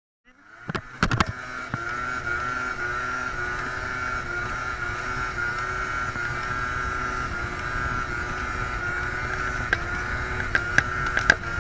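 Peugeot Vivacity scooter's engine running at steady revs through a wheelie, its pitch held flat. It cuts in after a moment of silence, with a few sharp knocks about a second in and again near the end.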